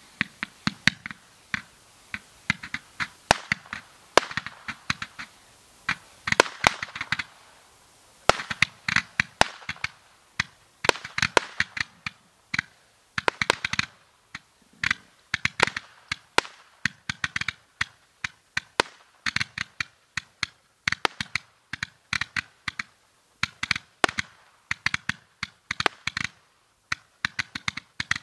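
Bubble Blaster roman candles firing: a long, irregular string of sharp pops, often several a second, as the tubes launch coloured stars, with bursts of hiss between the shots.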